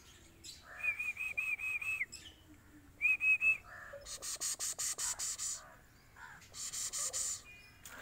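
Bird calling: a quick run of about six even, high whistled notes, then three more, followed by two spells of rapid, high-pitched rattling chatter.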